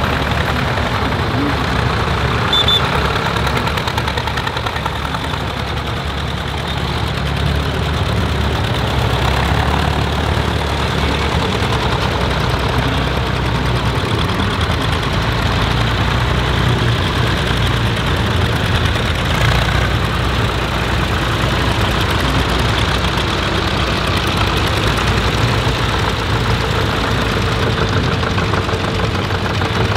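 Zetor diesel tractor engines running at low revs close by as the tractors move slowly past in line. It is a steady, unbroken engine sound with a slight swell around the middle.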